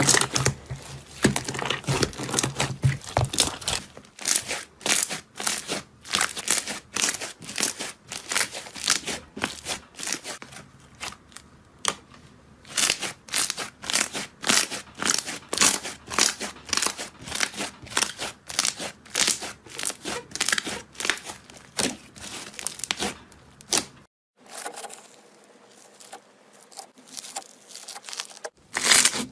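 Slime being squeezed and stretched by hand, giving rapid sticky crackles and pops that break off for a few seconds near the end.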